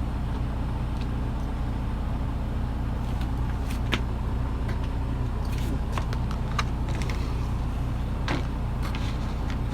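Steady low hum of an idling engine, with a few light clicks and taps of handling.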